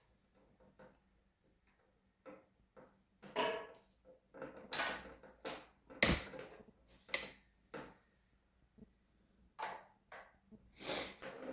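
Intermittent clicks, scrapes and knocks of a new motorcycle throttle cable being pushed and worked through its routing, with short rubbing sounds between; one sharper knock about six seconds in.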